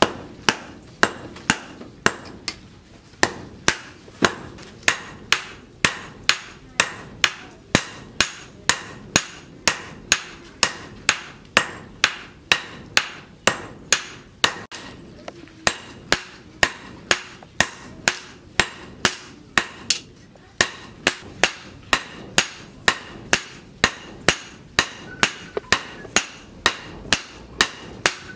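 Sledgehammer blows on red-hot leaf-spring steel laid on a steel post anvil, about two a second in a steady rhythm, each blow a sharp clang with a short metallic ring. There are a few brief pauses.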